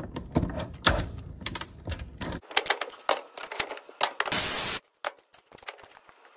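Hand ratchet clicking in quick runs as it slowly backs out the hidden bolt inside a Kia/Hyundai 2.4 balance shaft and oil pump housing. Scattered clicks and a brief scrape follow about four seconds in.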